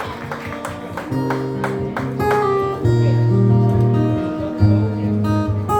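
Acoustic guitar playing a song's intro. It starts with single plucked notes, then fuller picked chords with ringing bass notes from about a second in.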